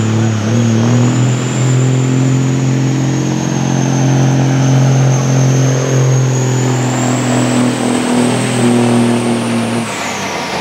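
Semi tractor's diesel engine pulling hard under full load as it drags a weight-transfer sled. It holds a steady, loud note with a high whine over it, and about ten seconds in it lets off and the whine falls away.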